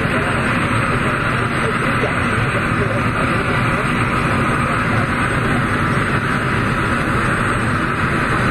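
Steady jet engine noise from a Boeing 747's four turbofans on final approach, an even hiss with a low rumble underneath.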